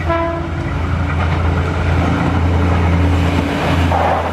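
Passenger train running past at a level crossing: a loud, steady low rumble of the train and its wheels on the rails, with a brief pitched tone right at the start.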